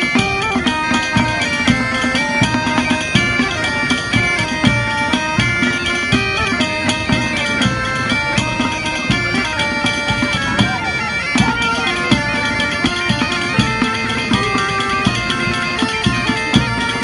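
Galician bagpipes (gaitas) playing a lively dance tune over a steady drone, with drums beating time.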